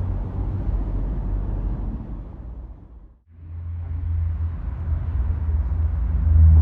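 Low, fluctuating outdoor rumble with no siren sounding; it fades out to a brief silence a little past halfway, then comes back.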